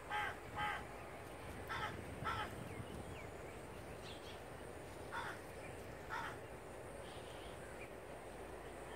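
A crow cawing: about six short caws, mostly in pairs, over a faint steady background hiss.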